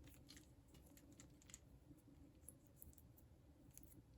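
Faint, irregular light clicks and rustles of twist ties being unwound from a coiled coaxial cable by hand, over a low room hum.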